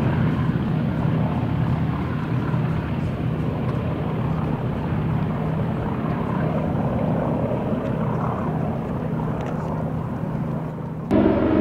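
Piston engines of a Boeing B-17G Flying Fortress, four nine-cylinder radials, running in a steady drone. Near the end the sound cuts abruptly to a louder, steadier engine note.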